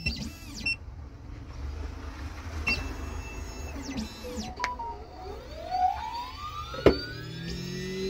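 Xhorse Dolphin XP-005L automatic key cutting machine at work on a key blank: its motors whine in arching sweeps up and down as the head moves, over a low hum. From about five seconds in a motor spins up with a rising whine that levels off near the end, and there is one sharp click just before seven seconds.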